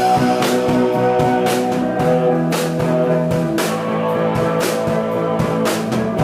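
Live rock band playing: electric guitar and bass holding sustained chords over a drum kit, with repeated cymbal crashes.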